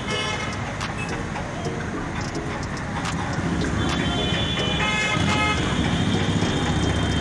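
Road traffic with car horns honking: a short horn toot at the start and another about five seconds in, over steady engine and tyre noise. A heavier engine rumble builds near the end.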